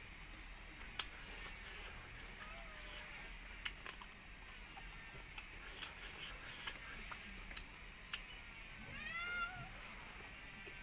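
Close-up eating sounds, with scattered sharp clicks of chewing and lip smacks as rice and pork are eaten by hand. About nine seconds in, a cat meows once, rising and falling in pitch, with a faint shorter meow earlier.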